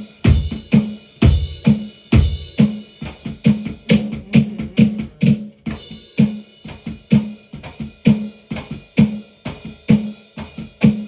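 Music: a drum-kit beat, kick and snare playing a steady, evenly paced groove.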